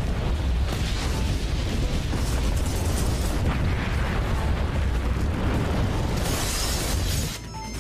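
Volcanic eruption sound effect: a dense, deep rumble with strong low bass that cuts off suddenly near the end, giving way to high electronic beeps.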